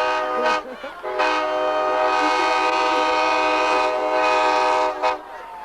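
Nathan Airchime K5LA five-chime locomotive air horn, truck-mounted, blowing a steady chord: one blast breaks off about half a second in, and after a short pause a long blast of about four seconds cuts off sharply near the end.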